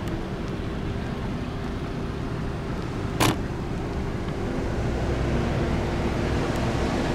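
Steady low rumble of passing vehicles, growing louder over the last two seconds, with one sharp click about three seconds in.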